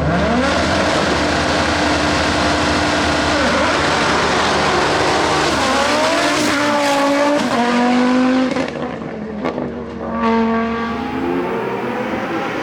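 Hillclimb race car engine at full throttle, its pitch climbing and then dropping back in steps as it shifts up through the gears. It quietens briefly about nine seconds in, then pulls hard again.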